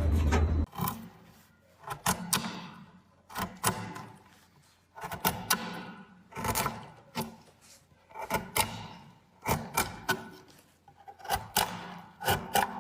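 A loud low rumble that cuts off under a second in, then an irregular series of sharp taps or knocks, each ringing briefly, about one or two a second, some in quick pairs.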